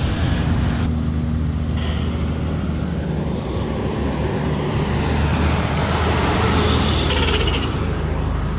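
Heavy diesel truck engines running steadily as trucks pass on the road, a continuous low hum of engine and tyre noise.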